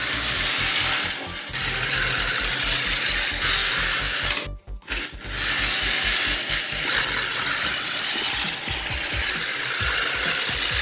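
Battery-operated toy train running along a tabletop: its small motor and plastic gears whir steadily, with the rattle of the locomotive's and wagons' plastic wheels. The whir drops out briefly a little under halfway through.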